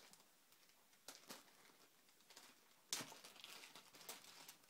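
Faint handling noises while unboxing a pistol and its accessories: light rustles and small clicks, with one sharper click or knock about three seconds in.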